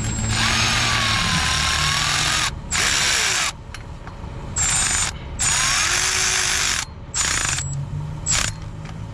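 Milwaukee cordless ratchet running in about six bursts, the first about two seconds long and the later ones shorter, driving down the thermostat housing bolts.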